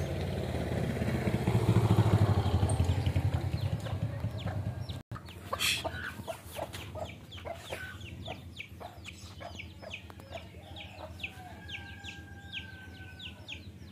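An engine passes, its low pulsing drone swelling and then fading over the first few seconds. After a cut comes a rapid run of short chirping bird calls, about three a second, like fowl or chicks calling.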